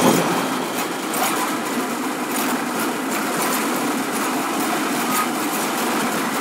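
Steady mechanical running noise with a quick, irregular clatter of clicks over it.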